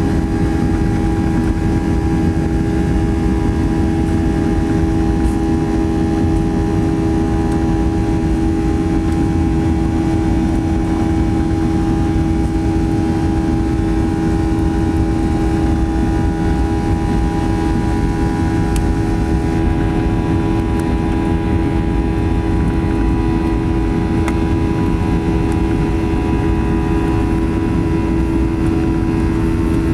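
Boeing 737-800 cabin noise: the steady drone of its CFM56-7B turbofan engines and the airflow, with a constant hum and a fainter higher tone over a wide rumble and hiss.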